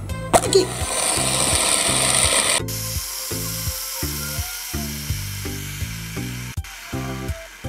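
A cheap plastic hand spinner with steel-ball weights is flicked and spins freely on its bearing. A few clicks at the flick give way to a steady whir, loud for the first couple of seconds and then fainter. Background music with a steady beat plays underneath.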